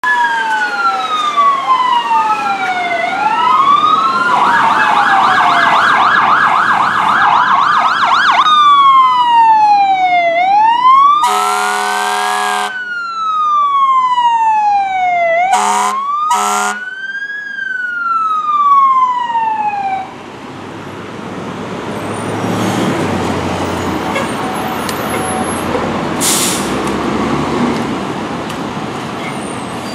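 Fire truck sirens: a slow rising-and-falling wail, a few seconds of fast yelp, then the wail again, with a long air-horn blast in the middle followed by two short ones. About two-thirds of the way in the sirens stop, leaving the trucks' diesel engines running among traffic, with one short hiss near the end.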